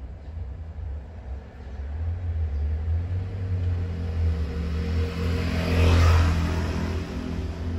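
A motor vehicle passing by, its engine rumbling. It grows louder to a peak about six seconds in, then eases off.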